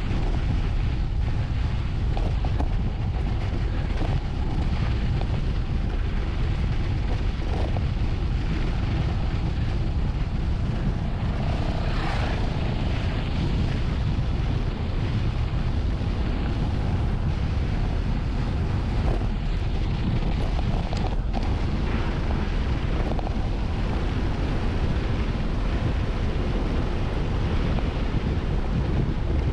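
Steady, loud wind rush on the microphone of a mountain bike's action camera during a fast downhill ride, with a few short rattles and knocks.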